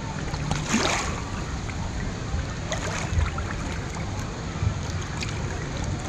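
Water lapping and sloshing around a camera held at the surface of a shallow lazy river, with a brief splash about a second in.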